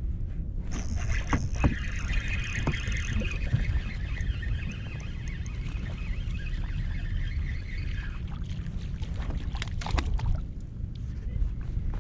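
Fishing reel being cranked to bring in a small hooked speckled trout: a steady whirring for about seven seconds that stops about eight seconds in, followed by a few sharp knocks around ten seconds. A steady low rumble runs underneath.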